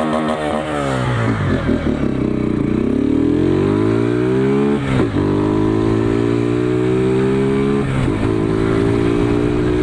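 Honda 150 Start single-cylinder motorcycle engine running through an aftermarket Roncar ML Competition exhaust with a deep note. It revs briefly, then pulls up through the gears, its pitch climbing and dropping back at gear changes about five and eight seconds in. The exhaust is leaking where it joins the engine, and the rider says the leak can be heard.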